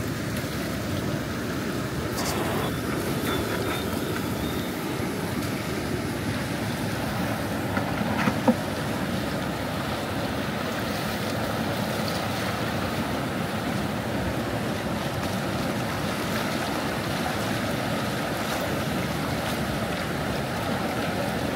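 Steady rushing of floodwater, with wind noise on the microphone. A short knock sounds about eight and a half seconds in.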